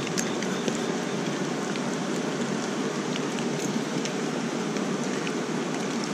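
Steady hiss of water, with faint scattered ticks over it.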